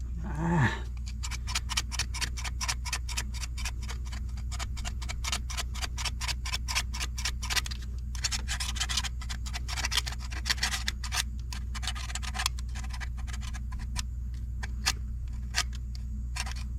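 Rapid short scraping strokes, several a second, scraping old residue off a cap where its seal should sit. The strokes thin out to a few spaced scrapes near the end. A steady low hum runs underneath.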